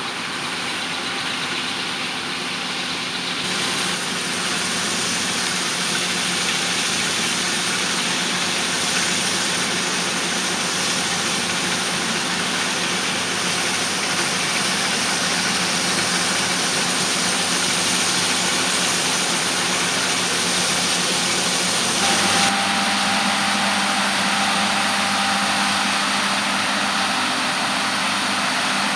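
Heavy farm machinery at work in a combine harvest: a steady diesel engine drone over a wide hiss, whose character changes abruptly about three and a half seconds in and again about twenty-two seconds in.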